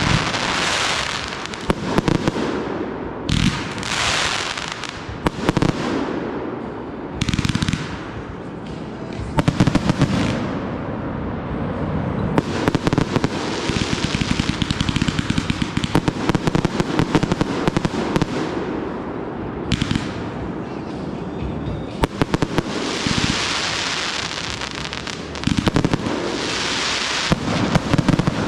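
Backyard fireworks show going off continuously: sharp reports in quick succession, with several stretches of a second or more of dense high-pitched hissing crackle.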